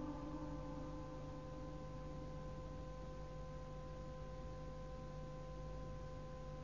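A pause in a tape recording of Quran recitation: the echo of the reciter's last word dies away within about the first second, leaving a faint steady hum of several held tones over light tape hiss.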